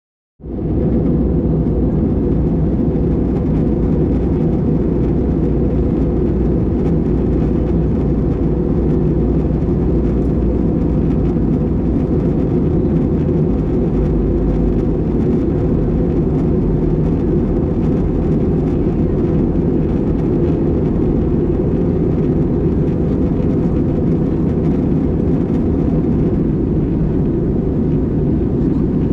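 Steady cabin noise of an Airbus A320-200 airliner in flight, engines and airflow, heavy and low-pitched and unchanging, starting suddenly right at the beginning.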